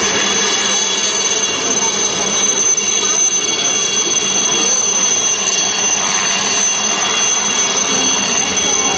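HAL Chetak helicopter in low flight: its single turboshaft engine gives a steady, loud high-pitched whine over the rush of the rotor.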